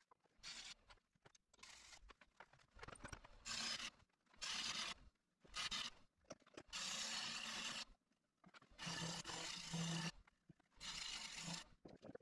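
Bowl gouge cutting a wooden bowl spinning on a lathe: a run of short hissing scrapes, about nine cuts with brief pauses between them.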